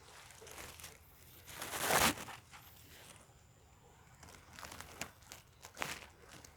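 Irregular rustling and crinkling noises, loudest in a swell about two seconds in, with a few short scuffs near the end.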